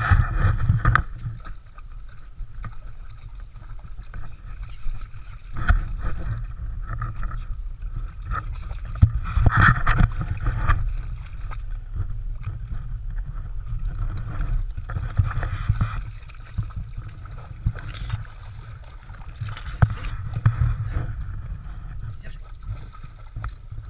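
A dog wading through a shallow stream, water sloshing and splashing irregularly around its legs over the steady run of the stream.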